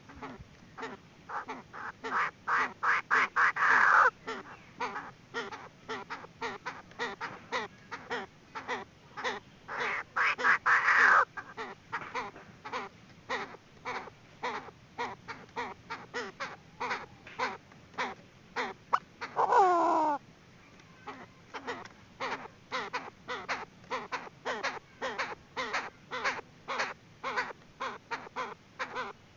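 Female Chinese francolin calling: a long run of short, clipped notes that twice speeds up into loud, rapid bursts, with one falling squeal about twenty seconds in. It is a hen's call, used as a decoy to lure cock birds into a trap.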